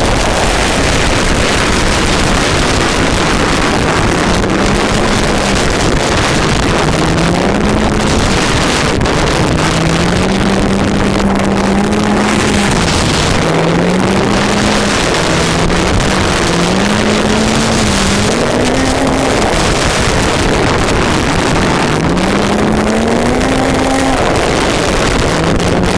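Snowmobile engine running under way, its pitch rising and falling again and again as the throttle is worked, with wind buffeting the microphone.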